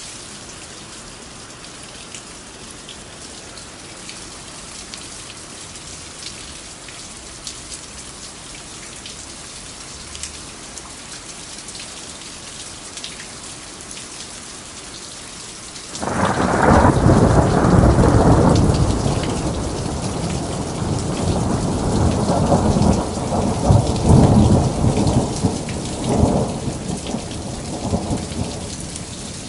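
Steady rain falling, an even hiss with individual drops ticking. About halfway through, a loud low rumble of thunder sets in suddenly and rolls on in waves, easing off near the end.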